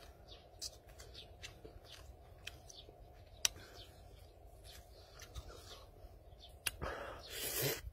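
A person eating cooked snake: sporadic wet mouth clicks and chewing, with a louder stretch of eating noise about seven seconds in.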